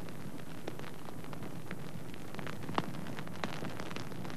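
Ground fire in dry undergrowth and grass, crackling with irregular sharp pops over a steady hiss; one pop stands out a little under three seconds in.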